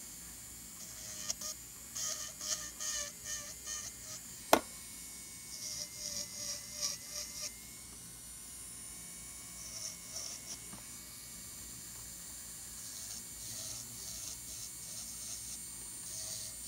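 Electric nail drill running with a fine needle-shaped bit, a steady high tone, with bursts of short gritty scraping strokes as the bit grinds away dry callus and cuticle skin around the nail. A single sharp click about four and a half seconds in.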